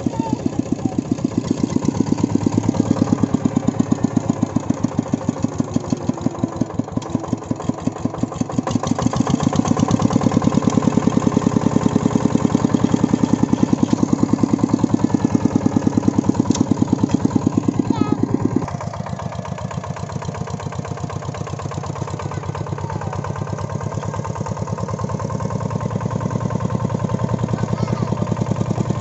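Single-cylinder diesel engine of a công nông two-wheel tractor running, its firing strokes in a steady, even beat; it gets quieter about two-thirds of the way through.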